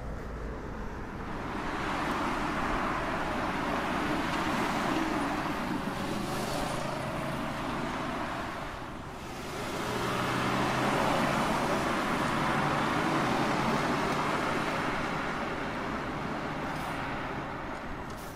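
Cars passing one after the other: two swells of tyre and engine noise, each rising and fading over several seconds, with a short lull about nine seconds in. The second pass is a Porsche 911 sports car going by close up.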